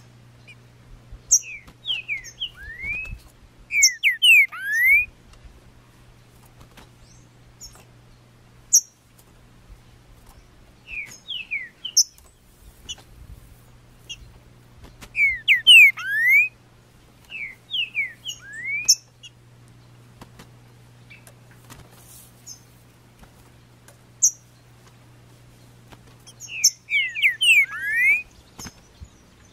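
Green-winged saltator (trinca-ferro) singing: short phrases of loud, sweeping whistled notes, about six phrases a few seconds apart, with sharp high chips in between over a faint steady low hum.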